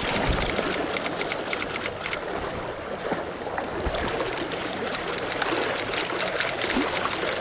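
Mountain stream water rushing and trickling steadily over rocks, with many quick light ticks above it.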